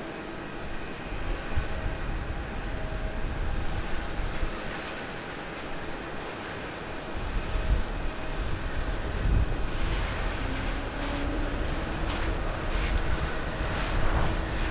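Airbus A320neo jet with Pratt & Whitney PW1100G engines landing. The engines and the rumble of its roll along the runway run steadily at first, then grow louder from about seven seconds in.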